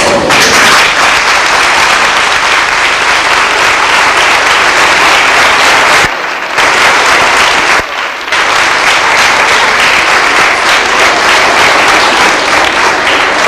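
Audience applauding: a large crowd of children and adults clapping steadily in a hall, loud and dense. The clapping dips briefly twice, about six and eight seconds in.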